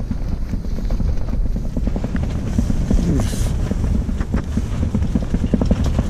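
High wind buffeting a tent cot from inside, the rainfly fabric flapping and snapping in rapid, irregular knocks over a steady low rumble of wind: a loud racket.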